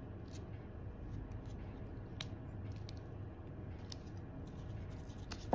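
Faint rustling and handling as floral tape is pulled taut and twisted around a bundle of wired flower stems, with a few light ticks.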